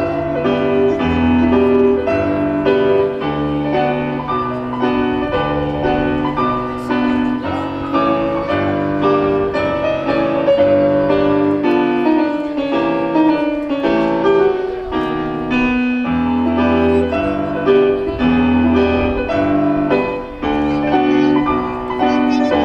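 Piano music: a piece played with repeated low bass notes under a moving melody.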